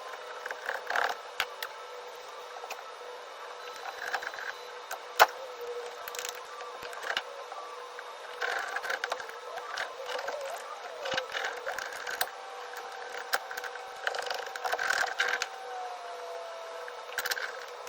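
Hands-on work noises from laying sound-deadening sheets: scattered sharp clicks and taps and short rustling, crinkling patches over a steady hum.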